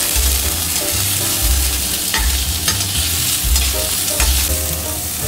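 Diced chicken tenderloin sizzling in hot oil in a wok, with a metal spatula scraping and clicking against the pan a few times as the pieces are stir-fried.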